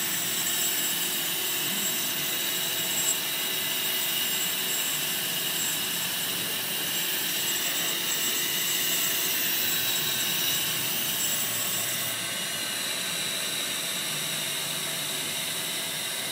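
Ultrasonic CNC spindle running while cutting quartz crystal: a steady high-pitched hiss with thin whining tones, the very highest part easing off about twelve seconds in.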